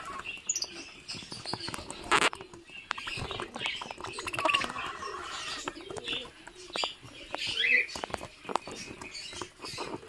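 A flock of cockatiels chirping and chattering in short scattered calls, over many small clicks and scratches, with one loud sharp click about two seconds in.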